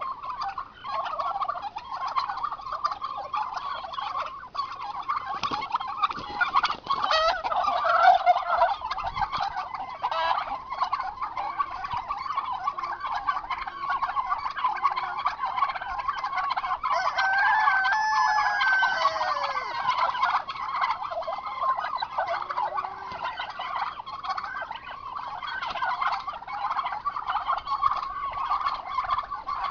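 Flock of domestic turkeys gobbling, many calls overlapping almost without pause, with one clearer call falling in pitch about two-thirds of the way through.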